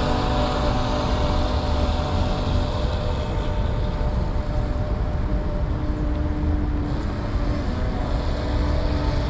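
Heng Long Atlantic Yacht No.3878 radio-controlled model speedboat running across the water, its small electric motor giving a steady whine that fades somewhat in the middle and comes back near the end, over a constant low rumble.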